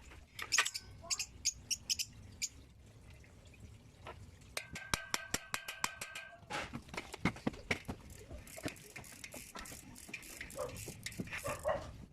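A string of sharp clicks and taps from hand work on bicycle parts. About four and a half seconds in comes a quick, evenly spaced run of clicks lasting about two seconds.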